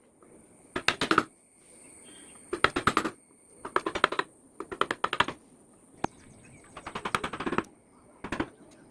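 Mallet tapping a wood-carving chisel into teak in short runs of quick taps, about one run a second.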